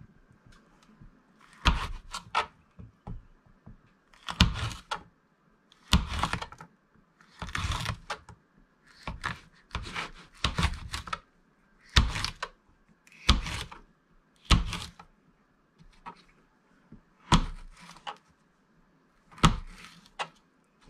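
Kitchen knife slicing jalapeño peppers on a plastic cutting board: a crisp cut and tap of the blade on the board roughly every second or two, sometimes two close together.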